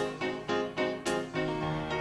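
Background music: a piano playing a melody of separate struck notes, with a deeper held note coming in near the end.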